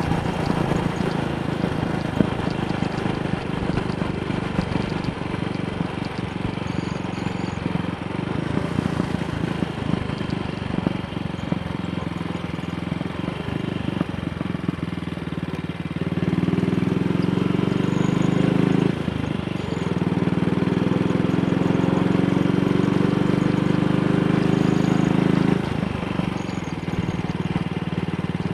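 AJS Model 8 single-cylinder motorcycle engine running at road speed with wind rush. Just over halfway through, the engine note grows louder and climbs steadily in pitch, dips briefly, climbs again, then drops back near the end. The engine runs cleanly with no popping or jerking, its misfire from a dislodged carburettor needle clip cured.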